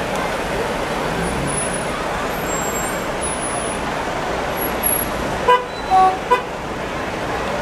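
Steady murmur of a large outdoor crowd, with three short horn honks near the end, the middle one a little longer and at a different pitch.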